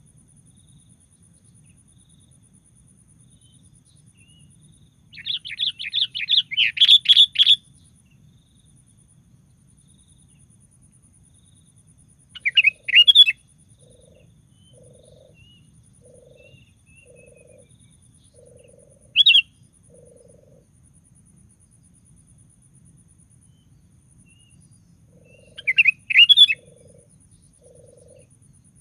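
Sooty-headed bulbul (kutilang) singing in loud bursts of quick, clear notes: one long rapid run, then three shorter phrases spaced several seconds apart, over a faint low hum.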